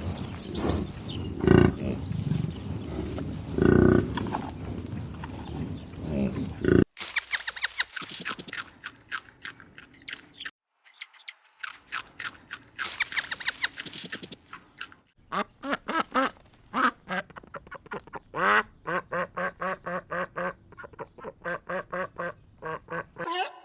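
A run of animal calls: a rough, noisy call for the first seven seconds, then short high chirps, then ducks quacking in quick repeated calls over the last eight seconds.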